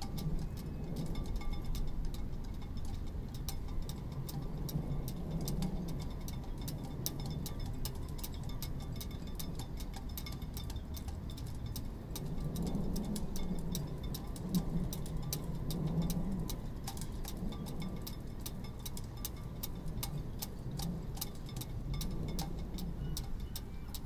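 Sailboat rigging tapping against a mast in the wind, a quick, even ticking of several clicks a second, over a low rumble that swells and fades.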